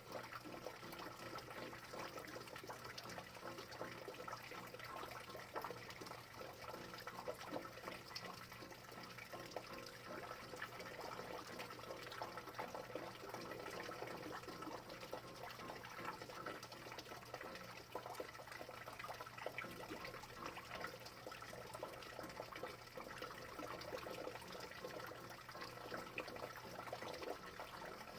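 Steady rain, a dense patter of fine drop ticks, with a faint steady hum underneath.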